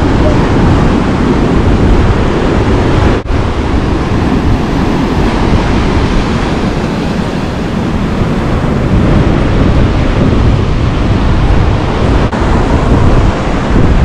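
Strong wind blowing on the microphone with a low, even rumble, mixed with surf breaking on the shore. It drops out for an instant about three seconds in and again near the end.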